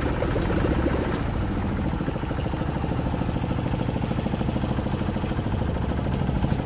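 Engine of a wooden canal tour boat running steadily at low speed, a fast, even pulsing hum.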